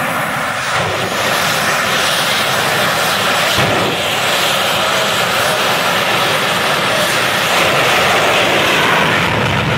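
Jet dragster's jet engine running at the starting line, a loud, steady roar that swells slightly near the end.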